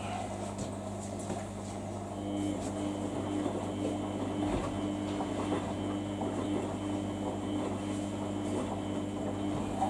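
Samsung front-loading washing machine running a quick wash cycle: a steady mains-like hum, joined about two seconds in by a higher, pulsing motor tone as the drum starts turning, with faint water and tumbling noise throughout.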